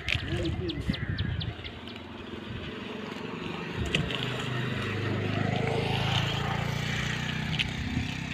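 An engine hum, growing louder from about three seconds in and holding steady, over light clicks and rustling of a wet cast net being gathered onto concrete.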